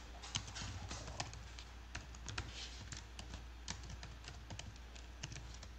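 Typing on a computer keyboard: a faint run of irregular, quick key clicks.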